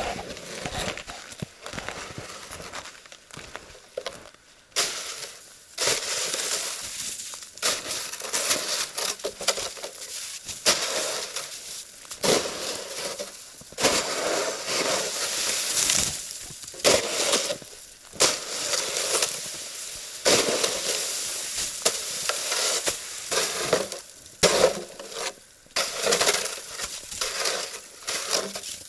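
Footsteps crunching on frozen spring snow crust at walking pace, a crunch about every second. The crust is hard enough to bear a person's weight without skis.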